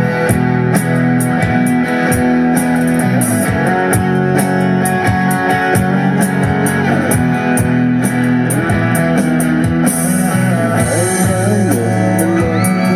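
Live rock band playing an instrumental intro: guitar over bass and drums, with a steady cymbal beat.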